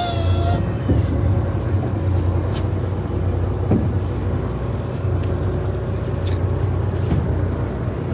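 A large boat's engine running steadily, a constant low drone with a few faint knocks and clicks over it.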